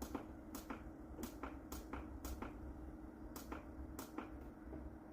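Quick, sharp clicks, about two a second, from the buttons on a Setpower portable compressor fridge-freezer's control panel being pressed repeatedly to step the temperature setting, over the steady hum of its compressor running.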